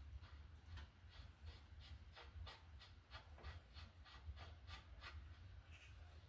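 Faint, rapid, evenly spaced mechanical ticking, about five ticks a second, over a low steady hum.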